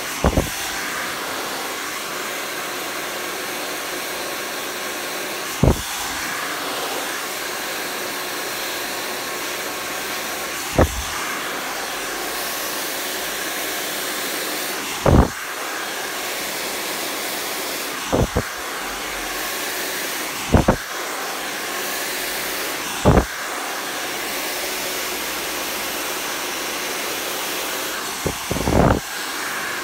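Hair dryer blowing steadily, with a short dull thump every few seconds.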